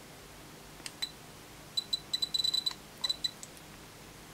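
Miniware MDP-P906 power supply beeping as its front buttons are pressed: a couple of faint clicks about a second in, then a quick run of short, high-pitched beeps.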